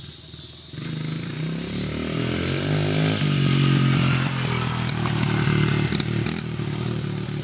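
Small dirt bike engine revving up, its pitch climbing for a couple of seconds as it accelerates, then running steadily at speed.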